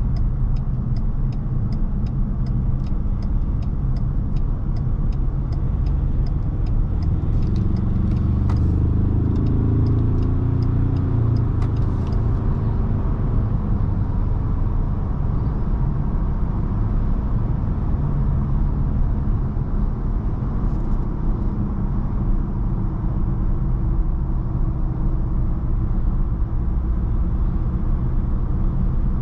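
Ford Ranger Raptor heard from inside the cabin while driving: steady engine and road rumble. A regular ticking at about two to three ticks a second runs for the first eight seconds or so. Around eight to twelve seconds in, the engine note rises as the truck accelerates, then settles back into a steady cruise.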